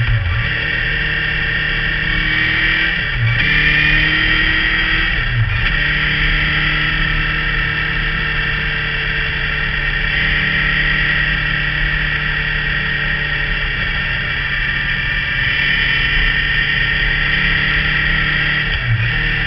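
Motorcycle engine and exhaust running steadily while riding, a constant buzzing engine note over wind and road noise. The note dips briefly a few times: about three seconds in, at about five and a half seconds, and near the end.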